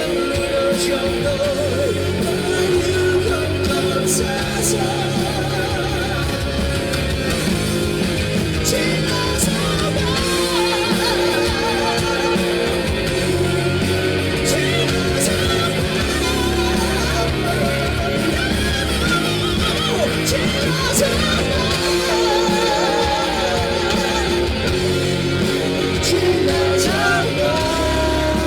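Live rock band playing, with electric guitar and vocals over drums and bass.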